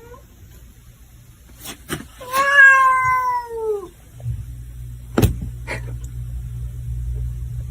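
A cat gives one long, drawn-out meow that falls in pitch, with a few sharp knocks around it. A steady low rumble starts a little after the meow ends.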